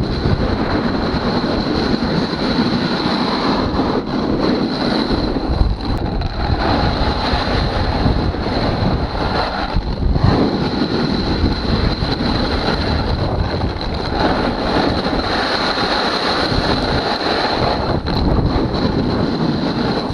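Strong wind rushing and buffeting over the microphone at speed, mixed with a snowboard's edges scraping and hissing over icy snow during fast carving. The noise swells and dips throughout without any rhythm.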